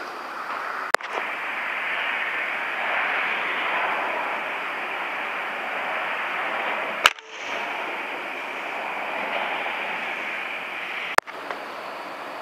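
Three sharp cracks of a PCP pellet air rifle firing, about a second in, about seven seconds in and near the end, over a steady hiss of background noise.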